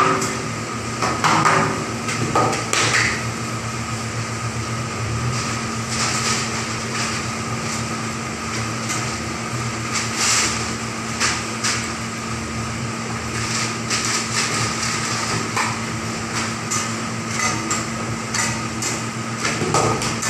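Metal fork and flat turner knocking and scraping on a large round metal griddle at irregular intervals, over a steady low hum.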